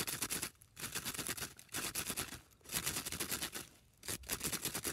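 Arctic fox scratching and digging at packed snow around an ice-fishing hole with its front paws: rapid scraping strokes in bursts of about a second, with short pauses between.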